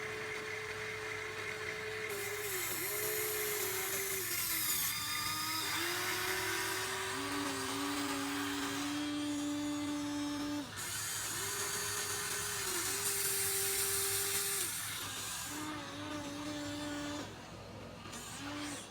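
Small electric motors of a Huina 1593 RC excavator whining as it works. The pitch steps up and down between two levels as the motors start, stop and change load, with stretches of higher grinding noise.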